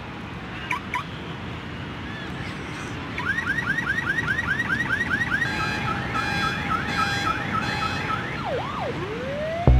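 A car alarm cycles through its patterns: a rapid run of rising chirps, about five a second, then a repeating two-tone warble, then slow swooping wails near the end. A steady rushing noise runs underneath.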